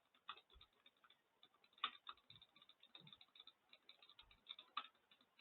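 Faint, rapid clicking of a computer mouse button during a click-speed test, many clicks a second, with a few louder clicks about two seconds in and near the end.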